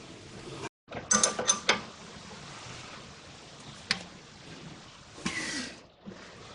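Metal clinks of a hand tool working the bottom nut of a front sway bar link: a quick cluster of clinks about a second in, a single sharp click near four seconds, and a short rustling scrape a little after five seconds.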